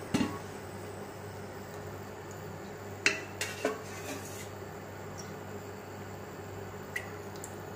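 A few scattered clinks and knocks of a utensil or bottle against a metal pressure cooker, a cluster of them about three seconds in, over a steady low hum.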